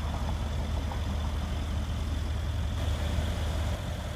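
Mercedes-Benz CLS63 AMG's 5.5-litre twin-turbo V8 idling steadily, its sound easing slightly near the end.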